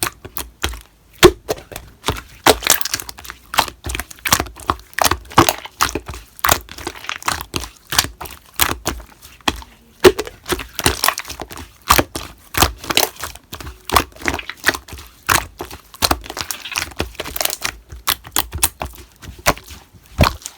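Slime being squeezed and pressed by hand, giving an irregular run of sharp pops and crackles, several a second.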